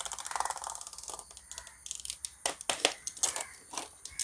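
Utility knife cutting through plastic mesh strands: a fast crackle of small clicks in the first second, then a string of separate sharp snaps as single strands are cut.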